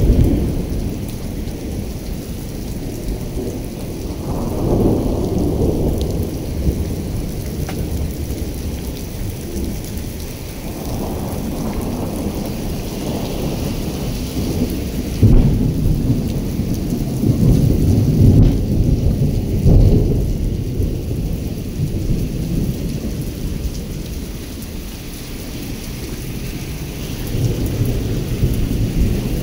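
Heavy rain pouring steadily onto wet pavement with an even hiss, while low rumbles of thunder swell and fade several times, the strongest about halfway through.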